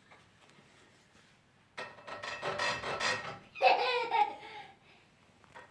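Rasping, scraping strokes of a hand tool worked against a wooden table, starting about two seconds in, with a brief child's vocal sound partway through.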